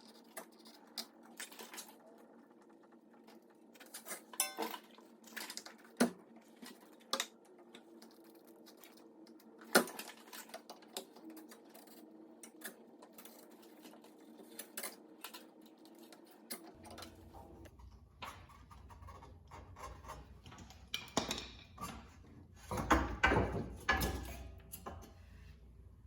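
Scattered metallic clinks and knocks from a flathead screwdriver and the old rear coil spring as it is pried off its rubber seat and worked out, with a denser, louder clatter near the end.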